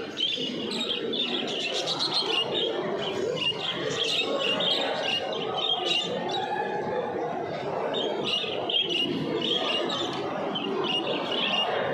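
Many small caged birds chirping and twittering at once in a dense, continuous chorus of short high calls, over a steady low murmur.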